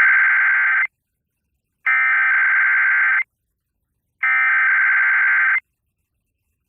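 Emergency Alert System SAME header: three identical bursts of harsh, buzzing digital data tones, each about a second and a half long with about a second of silence between them. These coded bursts open an alert message and carry its event type, area and time.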